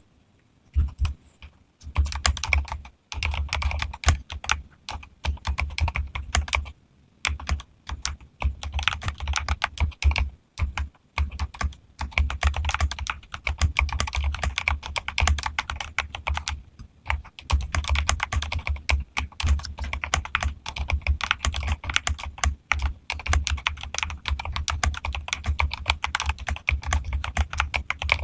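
Fast, continuous typing on a modified mechanical keyboard, a Keychron fitted with Akko Rosewood switches. The keystrokes have a deep, low thock, with a few brief pauses in the first ten seconds or so and near seventeen seconds.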